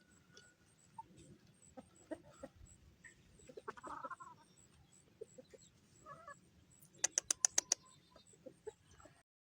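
Chickens clucking in short, scattered calls, with a quick run of about eight sharp clicks a little after seven seconds. The sound then cuts off suddenly.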